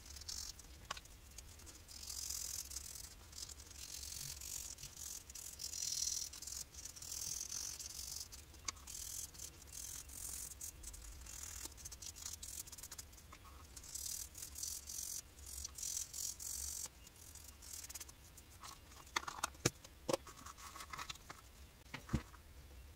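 Sandpaper rubbing along the cut edge of a thick black leather piece in repeated short scratchy strokes, sanding the edge smooth. Near the end there are a few light knocks as the pieces are set down on the cutting mat.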